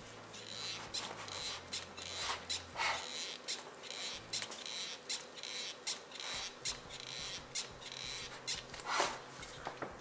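Hand-pumped grease gun working a cone-type bearing packer, a run of short squeaky clicks, about two or three a second, with each stroke as grease is forced into a tapered roller wheel bearing that it has not yet come through.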